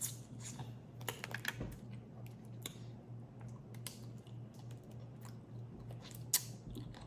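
Close-up eating sounds: scattered small clicks and crackles of crawfish shells being handled and peeled, with some chewing, over a steady low hum.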